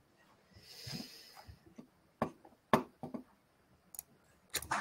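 A short breath close to the microphone, about a second long, then a handful of separate clicks from a computer keyboard.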